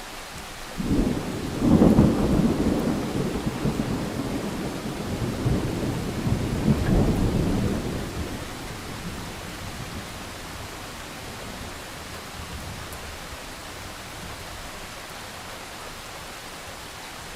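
A thunderclap breaks about a second in and rumbles on, swelling again midway before dying away, over the steady hiss of rain.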